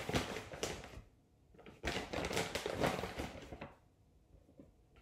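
Paper flour bag rustling and a measuring cup scraping through flour as it scoops, in two stretches of rustling: a short one at the start and a longer one from about two seconds in.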